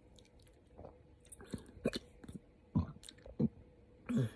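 A woman's short, sharp hiccups, several in a row with small mouth and throat clicks between them, brought on by too much spicy food.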